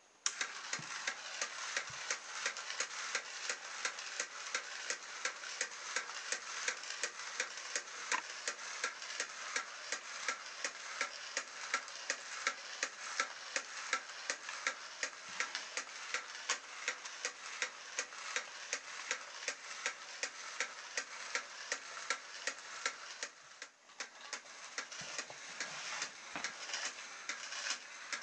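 Salvaged DVD drive mechanism's small motor and plastic gears switched on and running steadily, a continuous whirr with rapid, even clicking, driving a crawler robot. The sound dips briefly about 24 seconds in, then carries on.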